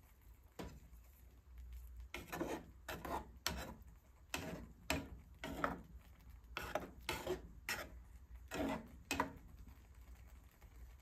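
A utensil scraping and stirring thick noodles in a pan: about ten short scrapes in irregular strokes, starting about two seconds in and stopping shortly after nine seconds.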